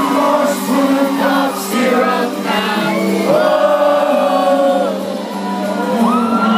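Rock band playing live, with singing over a held low note, while the crowd shouts and whoops.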